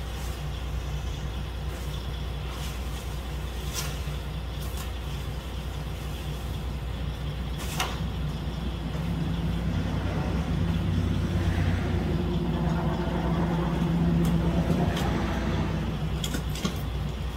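Truck engine idling with a steady low hum that grows louder about ten seconds in, with a couple of sharp knocks from boxes being handled.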